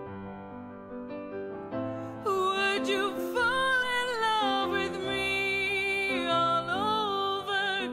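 Background music: a slow love ballad, soft accompaniment at first, then a singer comes in about two seconds in with long, wavering held notes.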